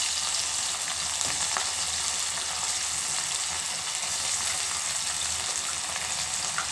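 Marinated boneless chicken pieces deep-frying in hot oil in a pan: a steady sizzle as pieces are dropped in one at a time.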